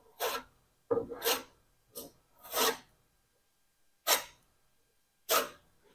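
Filler spreader scraping through body filler (bog) in about seven short, separate strokes with pauses between: the filler being worked and scooped up ready to spread.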